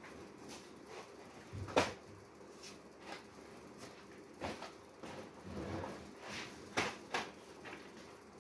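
Cardboard stock boxes being handled and shifted: a run of irregular knocks and scuffs, the sharpest knock about two seconds in and two more near the end.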